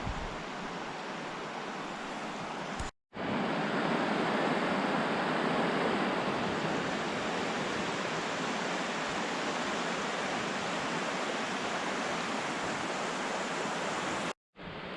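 Steady rushing of a rain-swollen creek running in flood. It breaks off abruptly twice, about three seconds in and just before the end, and is somewhat louder after the first break.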